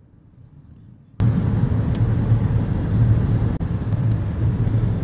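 Car driving on a city road, heard from inside: a steady low rumble of engine and tyre noise, faint for about the first second, then suddenly much louder, with one brief dip.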